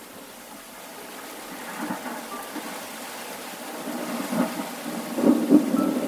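Thunderstorm: steady rain with a roll of thunder that builds up and is loudest about five seconds in.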